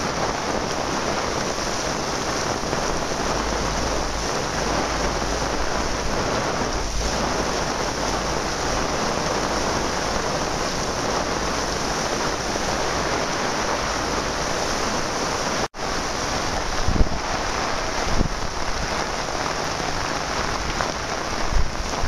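Steady, loud hiss of a thunderstorm's rain and wind, with gusts buffeting the microphone in low bumps near the end. The sound drops out for an instant about two-thirds of the way through.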